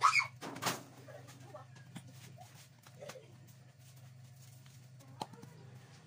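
A cloth rag is shaken out with two quick, loud flaps at the start, then gives soft rubbing and small clicks as a greasy plastic washing-machine part is wiped with it, with one sharper click about five seconds in. A low steady hum runs underneath.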